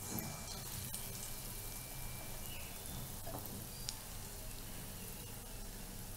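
Mysore bonda batter sizzling as it fries in hot oil, with fresh batter dropped into the oil by hand. A steady frying hiss with a couple of faint ticks.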